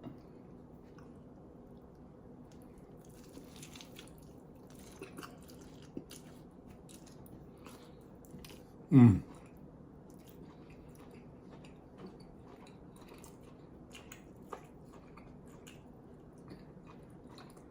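A man chewing a bite of a mushroom, onion, pepper and provolone hoagie, with faint soft crunches and mouth clicks. About halfway through there is one brief hum of the voice that falls in pitch.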